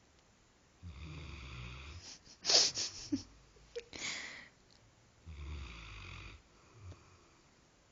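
A sleeping puppy snoring: two long, raspy snores about four seconds apart, with a louder cluster of short sharp breathy sounds in between.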